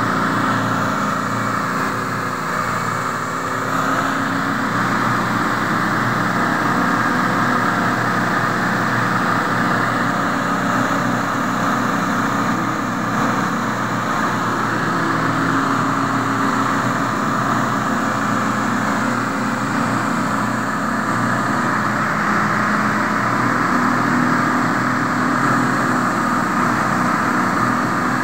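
A motor vehicle's engine running steadily at close range, keeping the same pitch throughout.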